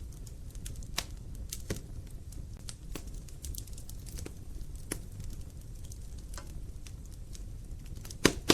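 Wood fire burning in a fireplace, with a low steady rumble and sharp crackles and pops every second or two, one louder pop near the end.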